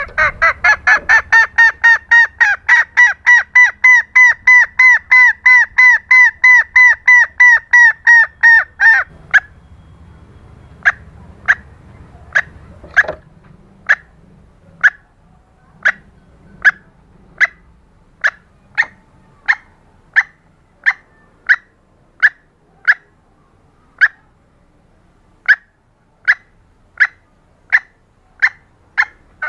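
Female green junglefowl calling: a loud, rapid run of about four short pitched notes a second for the first nine seconds, then single short notes spaced roughly two-thirds of a second apart.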